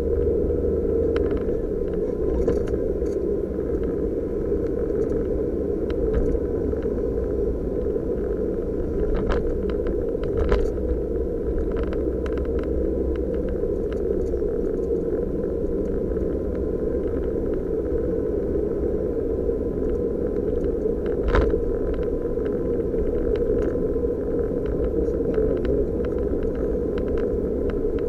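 Cabin noise of a Suzuki Jimny JB23 on the move: its small three-cylinder turbo engine and tyre noise make a steady low drone. A few short knocks or rattles sound over it, the sharpest about 21 seconds in.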